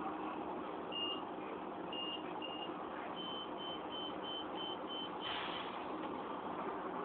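Steady running noise inside a city bus, with short high-pitched electronic beeps of one pitch: one about a second in, two more around two seconds, then a quick run of about seven evenly spaced beeps, roughly three a second.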